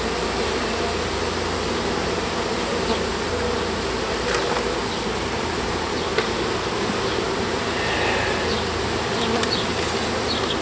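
A mass of honeybees from a freshly installed package buzzing steadily around an open Langstroth hive, with a few light taps from hands working among the frames.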